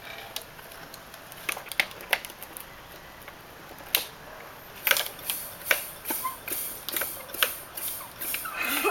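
A run of sharp mechanical clicks and knocks: a few scattered ones at first, then, from about halfway through, a steady series at roughly two a second.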